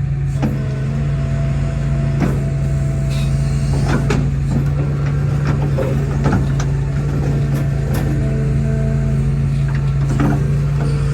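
Hitachi excavator's diesel engine running steadily, with scattered short metallic knocks and clanks over it.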